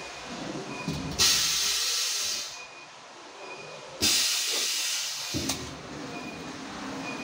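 Pneumatic hot-foil stamping press for licence-plate holders cycling. There are two loud bursts of compressed air hissing from its air cylinders and valves: one about a second in that lasts over a second, and another with a sharp click about four seconds in.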